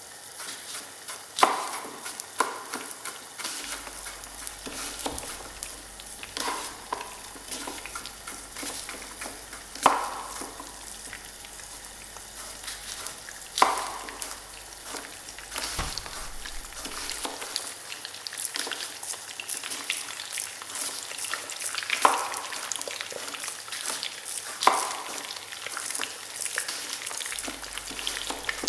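Restaurant kitchen: food sizzling steadily in a pan, with about seven sharp knocks spread through, some ringing briefly like metal.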